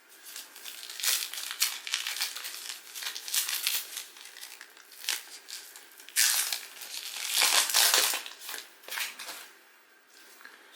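Plastic and foil wrapper of Donruss Optic trading card packs crinkling in irregular bursts as it is handled and opened, loudest a little past the middle.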